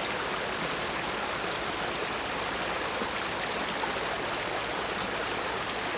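A small stream (burn) running steadily: an even rush of flowing water.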